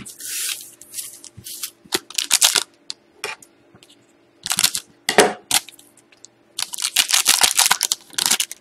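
Foil trading-card pack crinkling as it is handled and snipped open with scissors, then a longer run of crinkling and rustling near the end as the stack of cards is slid out of the foil wrapper.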